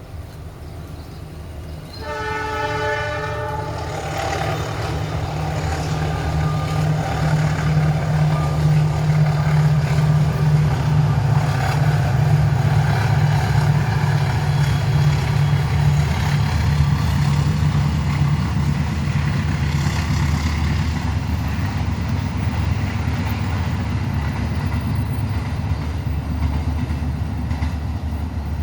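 Argo Wilis passenger train's diesel locomotive sounds its horn about two seconds in. The locomotive and coaches then pass with a heavy, steady engine rumble and wheel noise on the rails.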